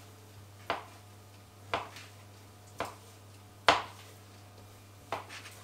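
Kitchen knife chopping chicken breast into cubes and knocking on a cutting board: five sharp chops about a second apart, the loudest near the middle.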